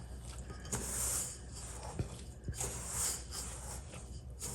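Hands mixing wet bread dough in a bowl: a soft, uneven rubbing and squishing with a few light knocks.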